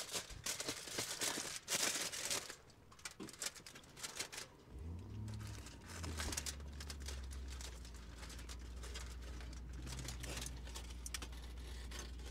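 Food wrapping crinkling and rustling in irregular crackles, most busily in the first couple of seconds. A steady low hum comes in about five seconds in.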